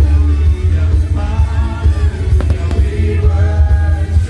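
Loud pyromusical soundtrack over a sound system: a song with singing and a heavy, steady bass. A faint crack or two comes about halfway through.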